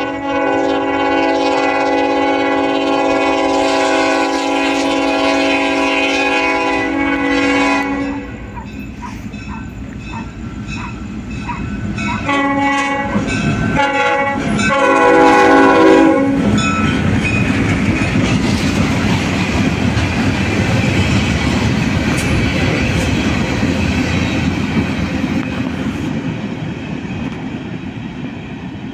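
Diesel locomotive air horn sounds one long chord that cuts off about eight seconds in, then three shorter blasts a few seconds later. The locomotives and freight cars then rumble past with wheel clatter on the rails, fading slowly.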